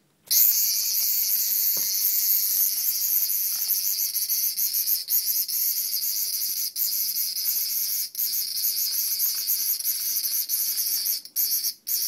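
A captured cicada buzzing loudly in distress. It starts suddenly just after the start as one continuous high-pitched buzz, broken by a few very short gaps.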